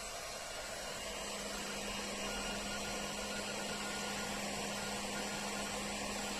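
Running machinery on a drive test: a steady fan-like rush with a steady low hum, unchanging throughout.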